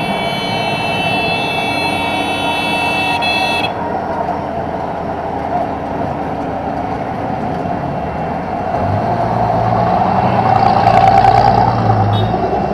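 Ride noise inside a moving electric auto-rickshaw: a steady din of road and wind noise. A high, steady whine cuts off suddenly about four seconds in, and a louder vehicle passes near the end.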